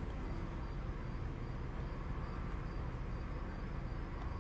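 Steady low rumble of car cabin noise, with faint high chirps repeating about three times a second.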